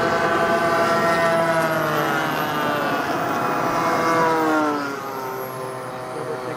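Radio-controlled scale warbird's propeller engine running at high power in a fly-by, its pitch falling as it passes about four seconds in, then quieter as it moves away.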